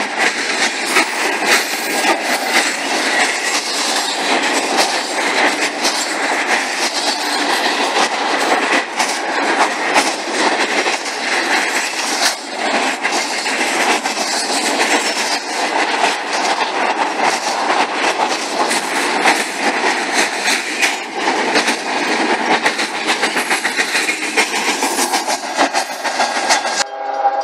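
Intermodal freight train cars rolling past at speed: a steady rumble and rattle from the wheels, with rapid clicking as they run over the rails. Just before the end the sound cuts abruptly to a steady train horn.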